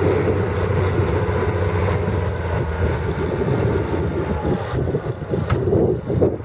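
Straight-piped International 1455 XL tractor's diesel engine running with a steady drone, turning uneven and choppy in the second half, with a brief click near the end.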